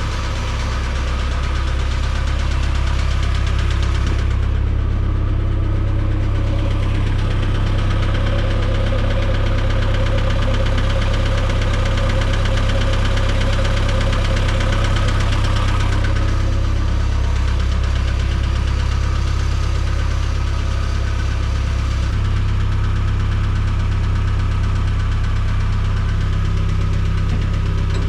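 Case 410 skid loader's diesel engine running steadily at a low, even idle-like note, shifting slightly a few times.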